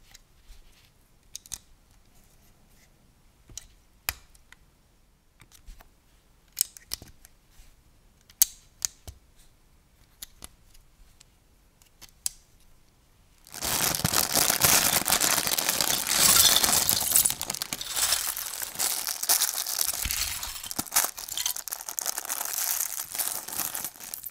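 LEGO bricks snapping and clicking as they are pressed onto a model, a sharp click every second or so. About halfway through, a clear plastic LEGO parts bag starts to crinkle and rustle loudly, with loose pieces clattering out of it, and keeps on for about ten seconds.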